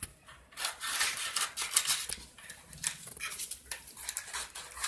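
A bottle being cut, an irregular run of crisp snips and crackles.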